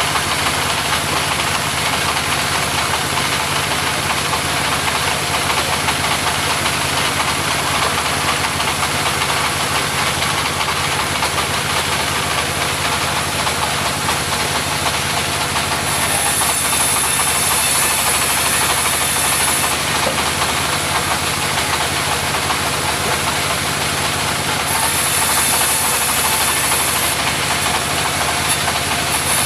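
Engine-driven mobile sawmill running steadily. A louder high hiss comes in twice, about halfway through and again near the end, as the saw cuts through timber.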